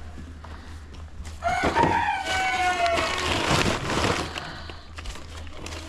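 A rooster crowing once: a long, loud call starting about a second and a half in and lasting roughly two and a half seconds.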